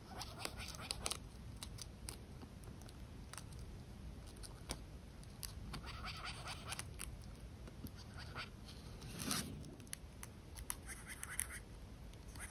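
Giant harvester ant (Messor arenarius) stridulating with the stridulatory organ on its waist beside the abdomen. It gives several short bursts of faint rasping chirps a few seconds apart, the alarm and defence signal of an angered ant.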